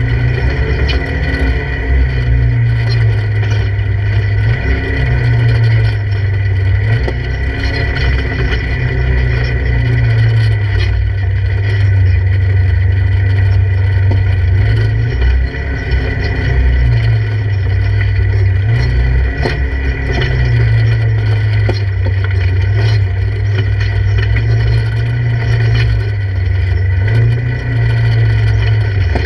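Polaris RZR 1000 side-by-side's engine pulling at low speed over rough rocky ground, its drone rising and falling with the throttle, with a steady high whine over it. Occasional knocks and rattles from the vehicle jolting over rocks.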